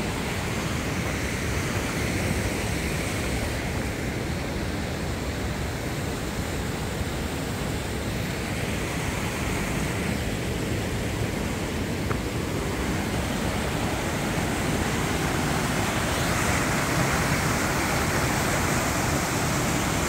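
Creek water rushing over mossy rocks, a steady rush that grows a little louder near the end.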